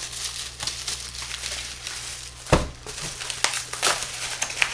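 Bubble wrap being handled and pulled off by hand, a continuous crinkling and crackling, with one sharp thump about two and a half seconds in.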